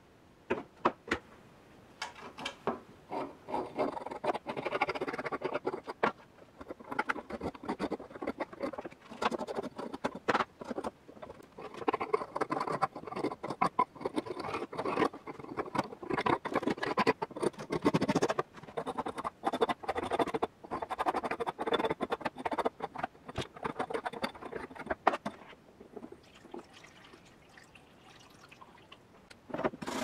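Softened rust being scraped off a wet antique iron padlock, with irregular scratching strokes and sharp clicks of tool on metal. The rust, loosened by a long electrolysis bath, comes off easily. The scraping eases off for a few seconds near the end, then scrubbing starts again.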